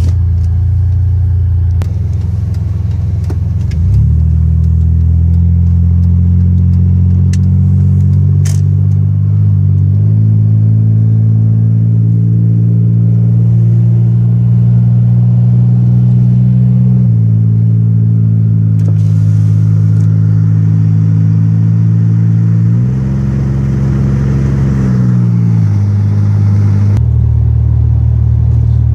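Supercharged 3800 Series II (L67) V6 of a 2001 Pontiac Grand Prix GTP heard from inside the cabin while driving, through a 3-inch ZZP exhaust with catted downpipe and no resonator. It is a steady low drone whose pitch steps up and down several times as engine speed changes.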